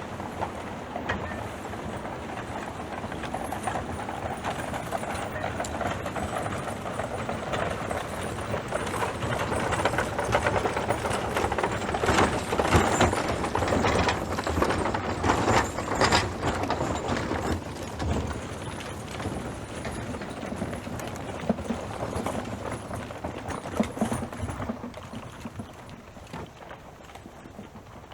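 Horse hooves clip-clopping, many knocks close together, growing louder toward the middle and fading near the end.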